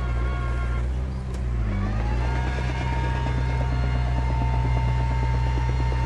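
Diesel engine of heavy earthmoving machinery running steadily under work. About a second and a half in the note dips briefly, then a higher whine rises and holds.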